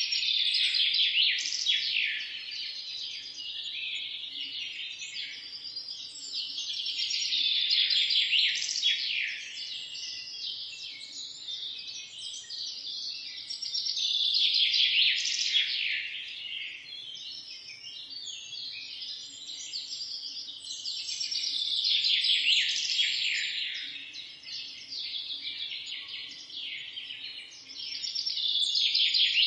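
A dense chorus of many small birds chirping and twittering together, swelling louder and fading back about every seven seconds.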